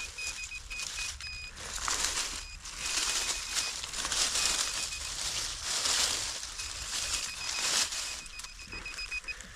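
Soil and debris rustling and scraping as a hole is dug, with a high steady beep from a metal detector pinpointer cutting in and out over a buried metal object.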